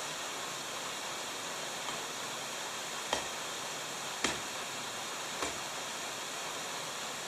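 An ice climber's gear striking frozen waterfall ice: three sharp thwacks a little over a second apart, the middle one loudest, over a steady hiss.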